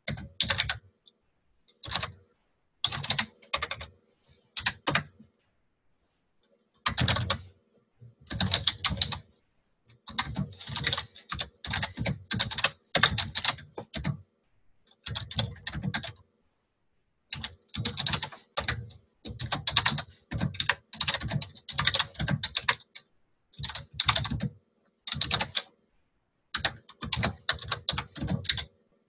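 Typing on a computer keyboard: runs of rapid keystrokes broken by short pauses between words and lines.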